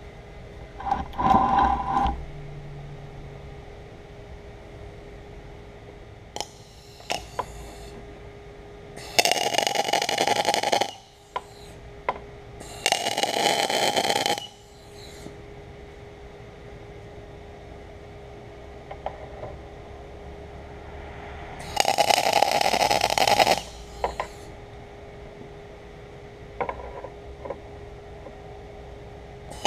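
Arc welding in short bursts of about one and a half to two seconds, four tack welds joining steel parts, with a steady hum and a few light clicks of handling between them.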